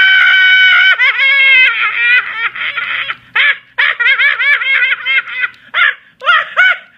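Very high-pitched laughter: a held shrill squeal for about a second, then rapid rising-and-falling peals of 'ha-ha', several a second, broken by short pauses.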